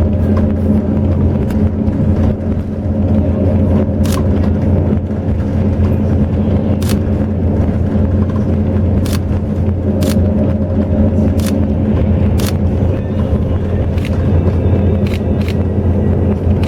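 Highway bus running steadily: an even, low engine drone, with a sharp tick or rattle every second or two.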